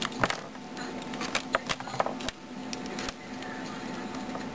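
Small clicks and taps as a pair of in-ear earbuds and their cable are handled, several in the first three seconds. A steady low electrical hum runs underneath.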